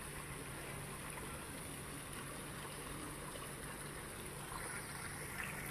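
Fountain water spraying and splashing steadily into a pond, an even watery hiss.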